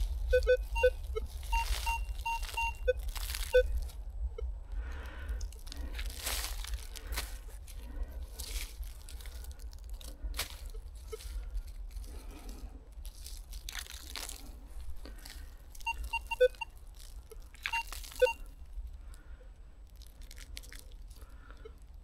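Hand digging through loose forest soil and dry leaf litter, with crunching and crackling. The metal detector gives groups of short beeps in the first few seconds and again about sixteen to eighteen seconds in, signalling a metal target in the disturbed soil.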